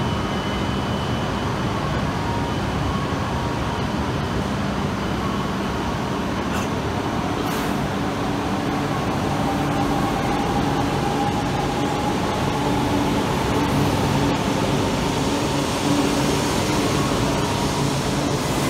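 E4 series double-deck Shinkansen pulling out of the platform: a steady hum at first, then from about halfway a faint electric motor whine rising in pitch as the train gathers speed, and the rolling of the cars passing grows a little louder.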